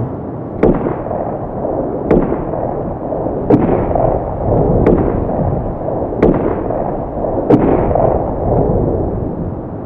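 Steady rumble inside a moving car, with a sharp knock about every second and a half, six in all, each trailed by a brief swell of noise.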